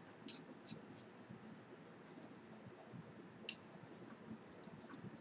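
Large wooden knitting needles clicking and tapping as stitches are worked in super bulky wool yarn: a few short, sharp clicks, the clearest about a third of a second in and about three and a half seconds in, over a low steady hum.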